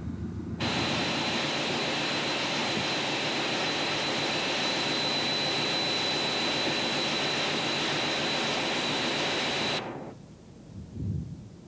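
Hastings diesel-electric multiple unit running at speed, heard from on board: a loud, steady rush of running noise with a fixed high whine above it. It starts suddenly about half a second in and cuts off abruptly near the end.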